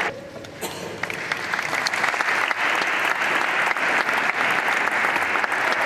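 Audience applauding. The clapping drops away briefly near the start, then comes back full and steady.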